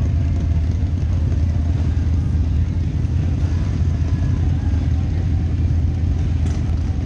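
Harley-Davidson V-Rod's V-twin through a Vance & Hines exhaust running steadily at low revs in slow traffic, mixed with the engines of the motorcycles around it. A low, even engine sound with no revving.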